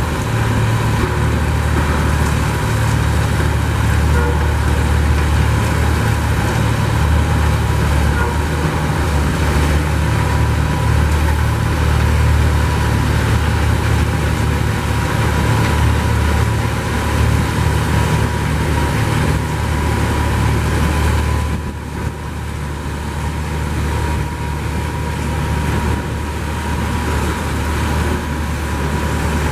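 Heavy diesel engines of a snow-loading convoy, a snowblower and a tractor-trailer, running steadily with a dense low drone and a thin steady whine over it. The sound dips briefly about two-thirds of the way through.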